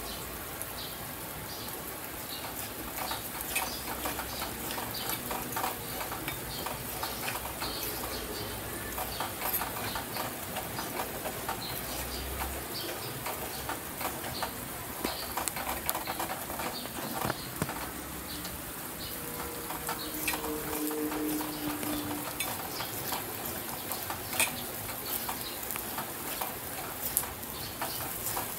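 Ground spice paste frying in hot oil in a pan, with a steady sizzle and many small crackles. A metal spoon stirs it through the oil.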